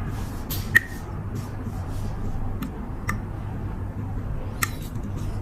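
A few sharp small metallic clicks and taps from a lighter and the tools working on its hinge. The loudest comes just under a second in and rings briefly, and lighter ticks follow every second or so. A steady low hum runs underneath.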